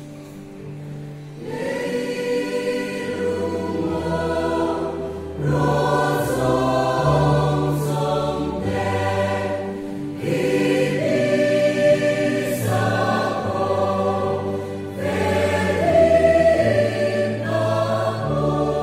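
Mixed choir of men's and women's voices singing a hymn in harmony, holding chords that change every second or two; the sound fills out about a second and a half in.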